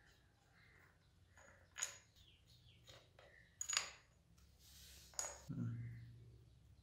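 Small metal clinks as nuts and a hand tool knock against the rusty finned head of an old single-cylinder air compressor while it is being unbolted: three sharp clinks with a short ring, the loudest in the middle, then a brief scrape and a low rub as the head is worked loose near the end.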